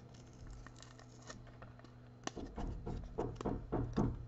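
Topps Rip trading card being pried open by hand: a run of irregular scratching, rubbing and clicking of card stock that starts about two seconds in.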